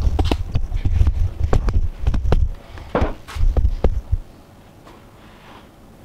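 Handling noise: a quick, irregular series of knocks and thumps over a low rumble, stopping about four seconds in.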